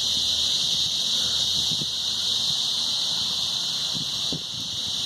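Katydids singing in chorus: a steady, high-pitched buzz that goes on without a break.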